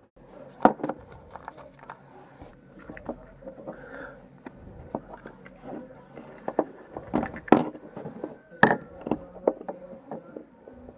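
Hands opening a yellow Kinder Surprise plastic capsule and handling the small toy inside: a string of sharp plastic clicks, snaps and taps with light rustling, the loudest ones near the end.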